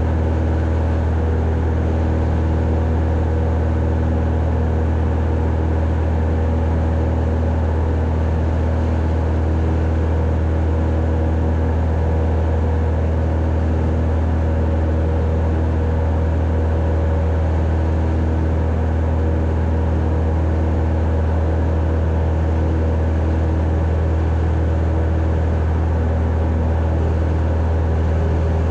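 Cessna 172's single piston engine and propeller running at a steady speed: a loud, even low drone.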